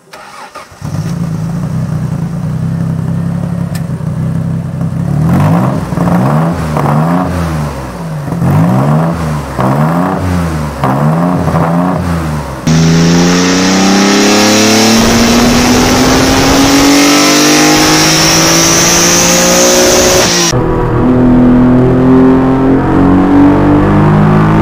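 Lancia Stratos replica's inline-four engine catches about a second in and idles, then is blipped several times, the revs rising and falling. From about halfway, the engine is heard from on board pulling steadily up through the revs under acceleration with a steady hiss, then drops in pitch at a gear change near the end and climbs again.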